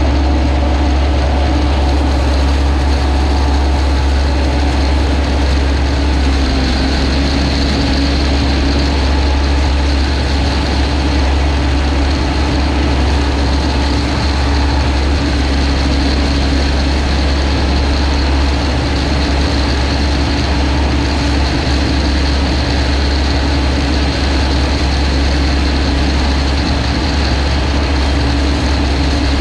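Combine harvester engine running steadily, a constant low drone with no change in pace.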